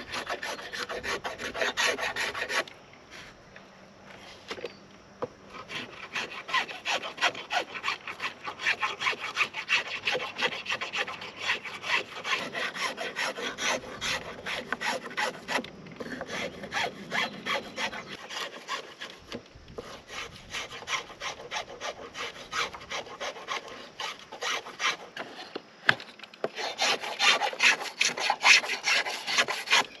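A hand blade shaving a stick of wood held in a wooden shaving horse: quick repeated scraping strokes that peel off curls of wood. It eases off for a couple of seconds early on and is loudest near the end.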